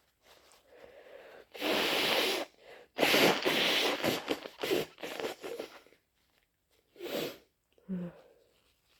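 A person with a head cold sneezing loudly and wetly: a sneeze about a second and a half in after a short build-up of breaths, then a longer loud spell of wet nasal noise lasting about three seconds, and two short sniffs near the end.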